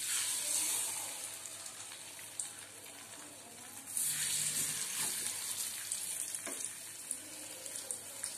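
Spice-marinated fish slices hitting hot oil in a kadai and sizzling, a sudden loud hiss as the first piece goes in, then a second about four seconds in as another piece is added, each slowly settling.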